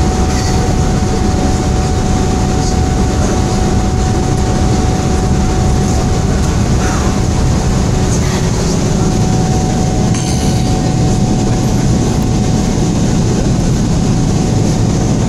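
Boeing 777 cabin noise in the climb after takeoff: the steady roar of its Rolls-Royce Trent 800 engines and rushing air, heard from inside the cabin, with a steady faint whine running through it.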